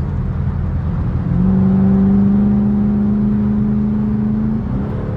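A car engine running with a low rumble. About a second in, a strong steady drone comes in, holds for about three seconds, then rises slightly in pitch near the end as the revs pick up.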